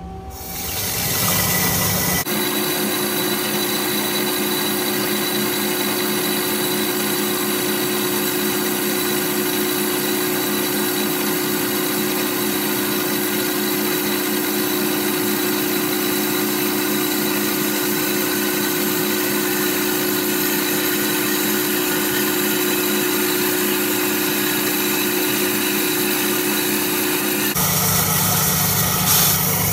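Metal-cutting band saw running with its blade in a golf ball held in the vise jaws: a loud, steady machine sound that rises over the first second or two, holds even, and changes tone near the end.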